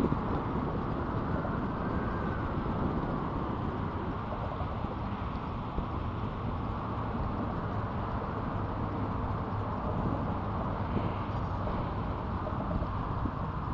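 Steady outdoor noise of wind buffeting the microphone over choppy water washing against concrete seawall blocks.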